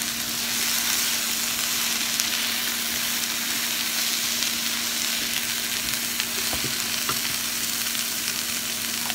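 Sliced zucchini, yellow squash, sweet peppers, onion and garlic sizzling steadily in a hot nonstick frying pan as a silicone spatula stirs and turns them, with a steady low hum underneath.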